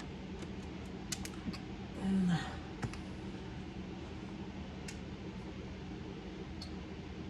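Sparse light clicks and taps of small laptop parts being handled during disassembly, with a short scrape about two seconds in, over a steady low hum.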